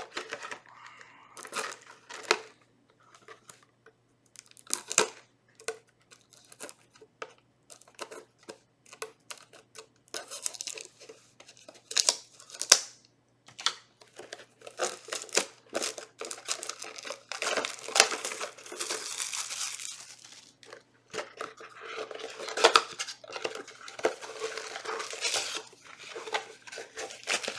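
Hands tearing open a small trading-card box and its plastic wrapping: repeated crinkling and tearing with many light clicks and taps as the contents are handled.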